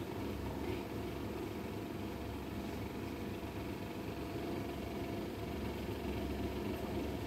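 A steady low mechanical hum and rumble that does not change, with faint steady tones above it.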